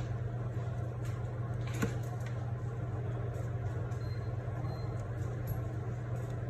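Steady low machine hum, with one faint tick about two seconds in.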